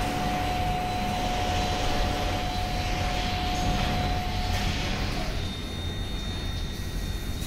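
Tammermatic T700 Turbo car wash in its top high-pressure stage: the high-pressure water jets and machinery run steadily with a rumble and spray hiss. A steady whine runs through the first five seconds or so and then stops, and a fainter, higher whine follows.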